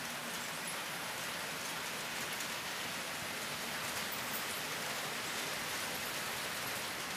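HO-scale model trains running on a Märklin layout: a steady, even hiss with faint scattered ticks.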